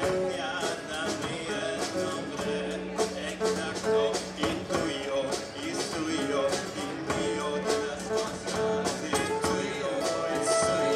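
Live acoustic band playing a song: two strummed acoustic guitars with keyboard and drums.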